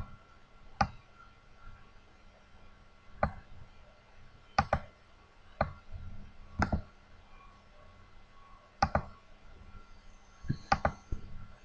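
Computer mouse clicks while navigating browser tabs: about a dozen sharp, short clicks at irregular intervals, several coming in quick pairs.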